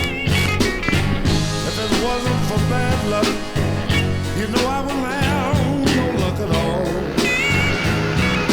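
Blues-rock music with wavering, bending lead lines over a steady bass.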